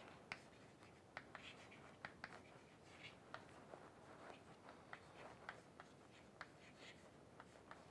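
Chalk on a blackboard as words are written: faint, irregular taps and short scratches.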